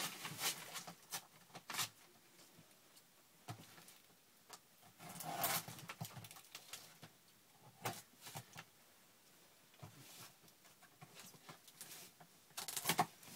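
Paper wrapping over a shoebox being pulled and torn off: scattered short rustles and crinkles, the loudest about halfway through and another cluster near the end.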